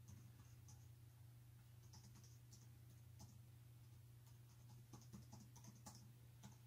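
Faint, scattered clicks of a computer mouse and keyboard, a little busier about five seconds in, over a low steady hum.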